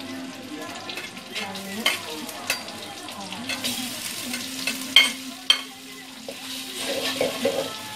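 Chopped onion, garlic, chilies and tomato sizzling in hot oil in a metal wok while a metal spatula stirs and scrapes them. It gives a few sharp knocks against the pan, the loudest about five seconds in.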